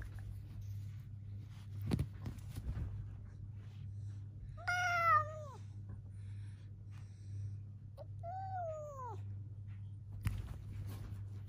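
Domestic cat meowing twice, short calls that fall in pitch, the first and louder one about halfway through and a second a few seconds later. A couple of brief knocks and a steady low hum lie underneath.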